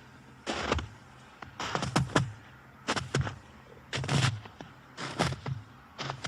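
Footsteps crunching in snow at a steady walking pace, about one step a second, each step a short crisp crunch.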